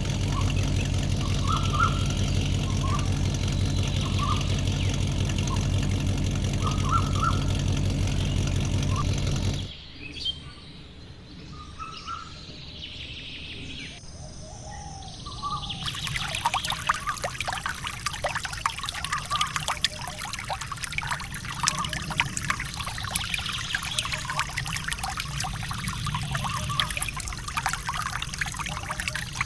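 Bird chirps over a steady background bed of music, cut off abruptly about ten seconds in. From about sixteen seconds in, water pours and trickles with a busy splashing patter.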